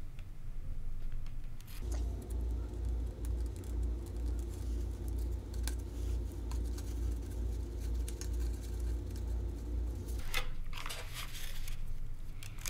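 Small clicks and rustles of hands fitting a plastic snap-on pushrod connector on a foam RC jet's elevator. A steady low hum starts about two seconds in and stops about ten seconds in. Near the end comes a louder burst of rustling as the foam plane is picked up and moved.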